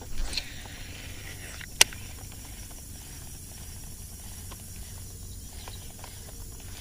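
Steady low outdoor background noise, with one sharp click about two seconds in.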